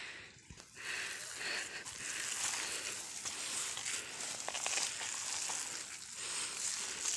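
Rustling and crunching as a basket of cow dung is tipped out onto a dung heap among leafy plants, with a few faint clicks.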